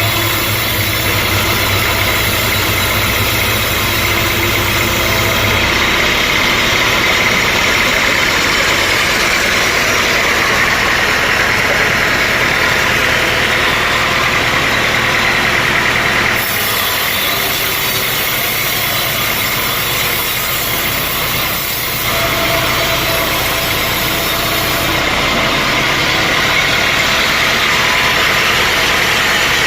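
Sawmill machinery running steadily and loudly, an engine-driven saw at work on a log. The sound shifts abruptly a few times.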